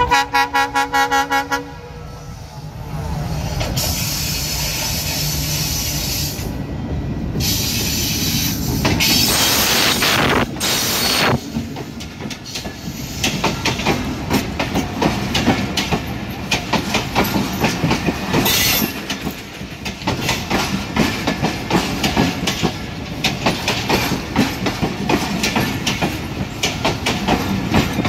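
Bangladesh Railway diesel locomotive sounding a short horn blast, then running past close by. Its passenger coaches follow, rumbling with a steady clickety-clack of wheels over the rail joints.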